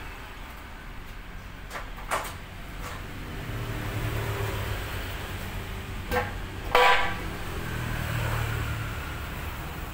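Steel knocks and clanks from a homemade pot-lifting cart being handled under a load of cement bags: a few sharp knocks, then one loud ringing metal clank about seven seconds in, over a low rumble.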